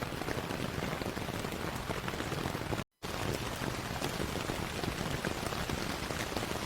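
Recorded rain sound effect: steady rain falling on a surface with a fine pattering crackle. It cuts out completely for a split second about three seconds in, then resumes unchanged.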